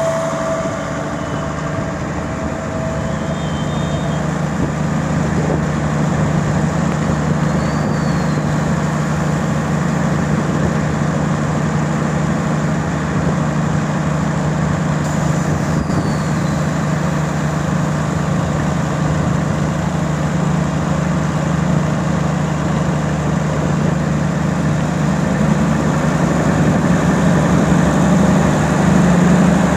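Greek OSE MAN 2000-series diesel multiple unit standing at a platform with its diesel engines idling, a steady low hum that gradually gets a little louder.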